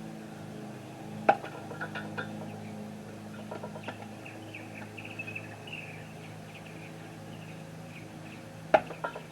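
Eafengrow EF55 pocket knife blade stabbed into a wooden post twice, a sharp knock about a second in and another near the end, each followed by a few small clicks. Birds chirp now and then over a steady low hum.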